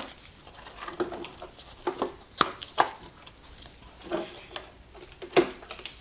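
Hand tool and hands working at the burned shell and motor brackets of a Gotway ACM electric unicycle: scattered clicks and knocks, with a few sharp clacks about two and a half seconds in and one near the end.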